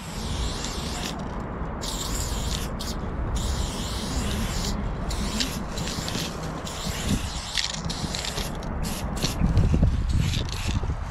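Aerosol spray paint can hissing in many short bursts, starting and stopping as a tag is written, over a low rumble.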